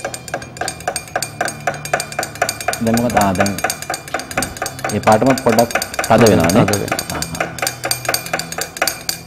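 A stick stirring a red dye mixture in a drinking glass, clinking against the glass about five times a second. A few scraping sounds that slide in pitch come in the middle, the loudest just after six seconds.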